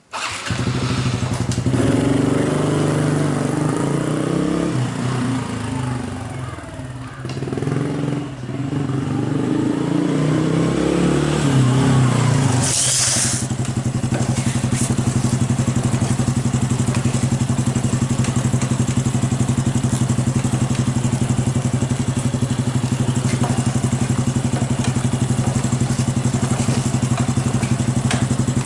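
Honda Super Cub 110's single-cylinder four-stroke engine running, its speed rising and falling for about the first 13 seconds, then settling into a steady idle. A brief high hiss sounds as it settles.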